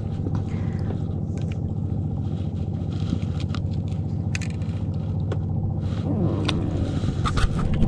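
Small boat engine running steadily, a low even hum, with light scattered clicks and ticks over it.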